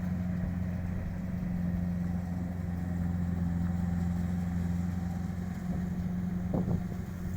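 Kubota DC-70 combine harvester's diesel engine running at a steady speed with a low, even hum. A brief higher-pitched squeak or clank comes near the end.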